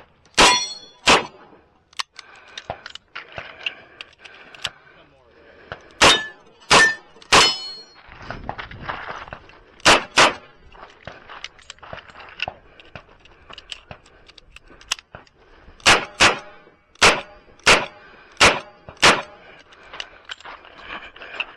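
Smith & Wesson Model 625-JM .45 ACP revolver firing about a dozen shots in quick groups of two or three, with pauses between the groups. Some shots are followed by the short ringing of hit steel targets.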